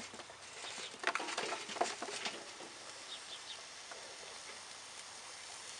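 Lit charcoal briquettes tipped from a metal chimney starter, clattering and tumbling into a Weber kettle grill. The clatter comes in a cluster about a second in and lasts a second or so; a faint steady hiss follows.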